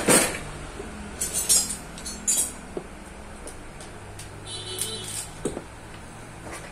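Metal tools and bicycle gear parts clicking and clinking as they are handled, with a sharp click at the start and scattered lighter clinks after.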